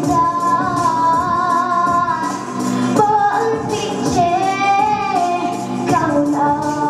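A girl singing into a microphone over accompanying music with a steady percussion beat, holding long notes with a wavering vibrato.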